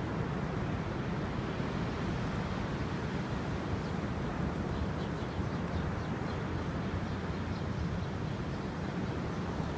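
Caspian Sea waves with wind on the microphone: a steady wash of noise, heaviest in the low range.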